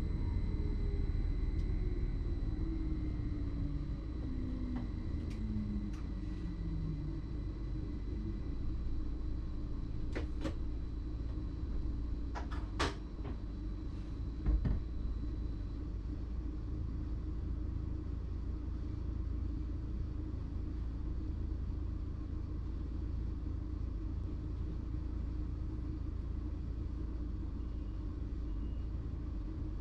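Inside the cab of a BLS RABe 515 MUTZ electric multiple unit: a steady low running rumble, with the traction motors' whine falling in pitch over the first several seconds as the train slows. A few sharp clicks and knocks come close together around the middle.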